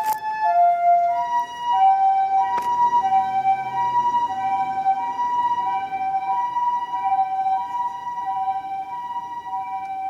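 Japanese ambulance siren sounding its two-tone "pee-po" call, a high and a low tone taking turns in a steady, even rhythm, slowly growing fainter as the ambulance moves away. A single brief click about two and a half seconds in.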